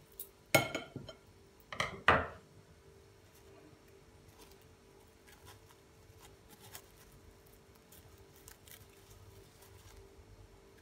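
Kitchen scissors clicking and clattering twice in the first two seconds as they are handled and set down, then faint crinkling and rustling of plastic film being peeled off rolled chicken sausages.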